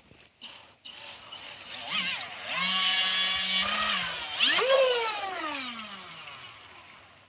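The 3D-printed RC boat's 2300kv brushless outrunner motor whining under throttle. The pitch rises about two seconds in and holds as a steady high whine, climbs sharply again around the middle, then glides down and fades near the end.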